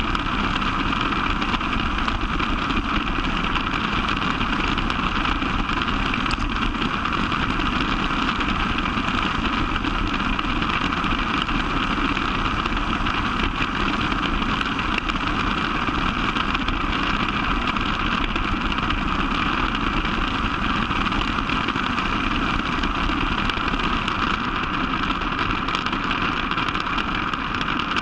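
John Deere 9650 STS combine running steadily while harvesting corn, a constant, unchanging machine drone.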